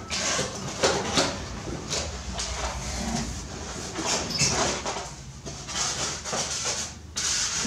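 Long cardboard box being opened by hand: the lid scraping and sliding off, the cardboard flexing and the packing inside rustling, in a string of short scrapes and knocks.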